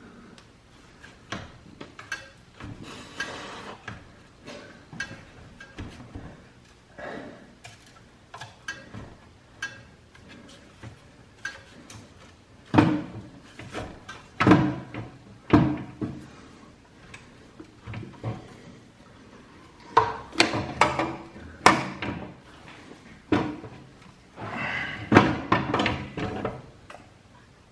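Irregular metal knocks, clanks and clicks of exhaust parts and hand tools as the catalytic converter is worked loose from a motorcycle's exhaust header pipes. The knocks come thicker and louder around the middle and again in the last third.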